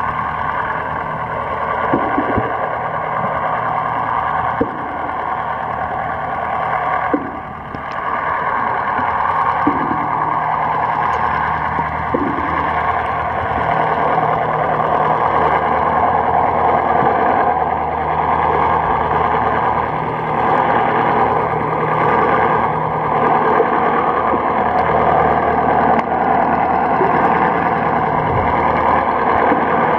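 Boat engine running, heard underwater as a steady, muffled hum, with the wash of moving water.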